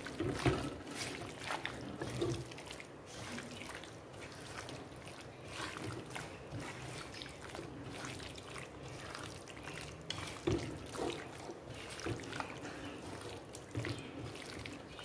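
Hand kneading spice-coated raw chicken pieces in a pot: an irregular run of wet squelches and soft slaps.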